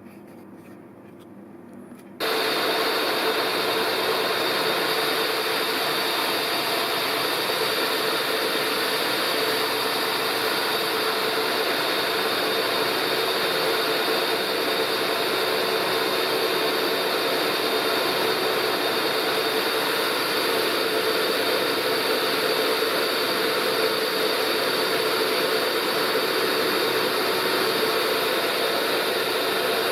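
Milling machine switched on about two seconds in, running steadily with a constant whine while drilling through a weld-built scooter brake caliper mounting lug.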